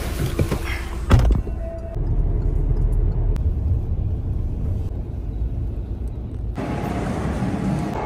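Low rumble of a moving vehicle, with a thump about a second in. The rumble sounds dull until near the end, when it turns brighter and noisier.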